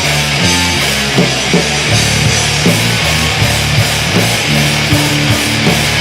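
Black metal music: heavily distorted guitars over a shifting bass line, with drums hitting in a steady mid-tempo beat about two to three times a second.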